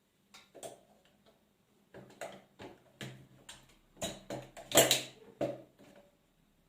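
Clicks and metal knocks from a MEC Sizemaster shotshell reloading press being worked on a 12-gauge shell. They come as a quick irregular series, with the loudest clack about five seconds in.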